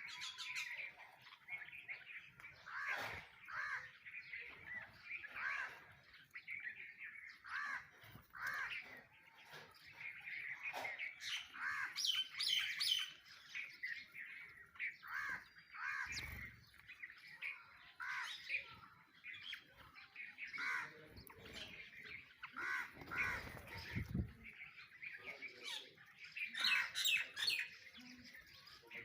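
A flock of sparrows chirping busily and continuously, mixed with calls of mynas, and a crow cawing now and then. There are brief low rumbles about halfway and two-thirds of the way through.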